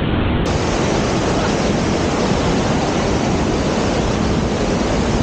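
Steady rushing of a waterfall's falling water, an even noise with no breaks, growing brighter abruptly about half a second in.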